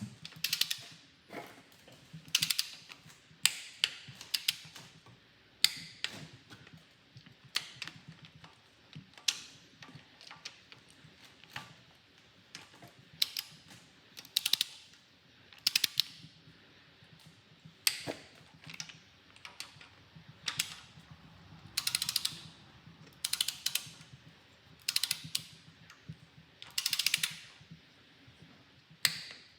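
Ratcheting torque wrench tightening the small cylinder head bolts on an LS3 V8 to 25 ft-lb: short bursts of ratchet clicks every second or two, with a few longer ratcheting runs in the second half.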